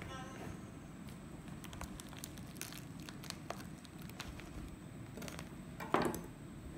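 Knife prying open a durian's spiky husk: scattered small clicks and crackles, with one louder, brief crunch about six seconds in.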